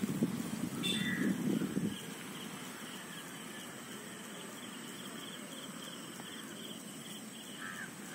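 Faint, steady chirring of insects, with a couple of short bird chirps. A low rumble in the first two seconds, likely wind on the microphone.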